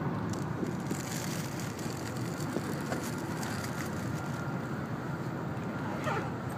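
Steady running noise inside the passenger cabin of an N700-series Shinkansen train as it travels along the line.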